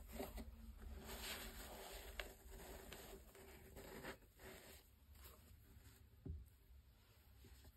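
Faint rustling and light taps of cotton-gloved hands handling leather Nike Dunk Low sneakers and their laces, with a soft low knock about six seconds in as a shoe is set down on the table.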